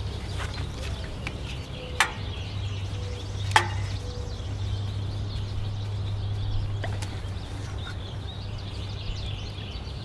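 Two sharp clicks about a second and a half apart, with a fainter one later, as pliers and a hose clamp are worked to pull the fuel line off a Briggs & Stratton V-twin's carburetor. A steady low hum runs underneath.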